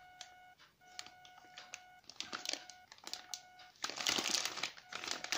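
Clear plastic packaging bag crinkling as it is handled, in irregular rustles that are loudest about four seconds in.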